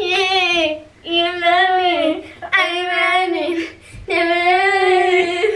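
Girls singing four long, drawn-out phrases, each note held for about a second with short breaks between.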